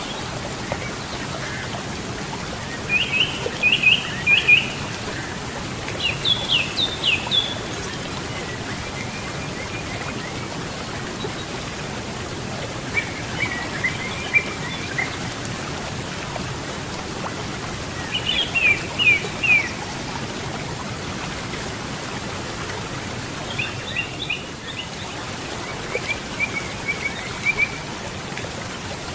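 A river's steady rush of water, with a songbird singing short phrases of quick, high, down-slurred notes every few seconds.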